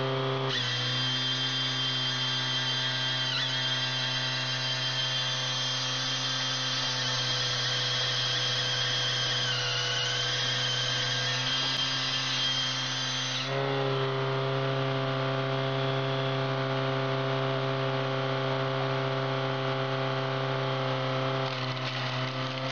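Firewood processor running: a steady engine and hydraulic drone with a high whine from the chainsaw bar, which dips briefly as it cuts. The tones shift abruptly about thirteen seconds in.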